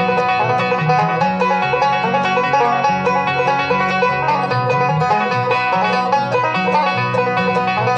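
Bluegrass string band playing an instrumental, with fast banjo picking over guitar and a walking bass line.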